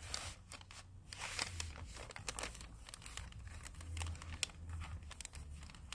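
MRE flameless ration heater bag and its cardboard sleeve crinkling and rustling in the hands as the top of the bag is folded over, a scatter of small irregular crackles.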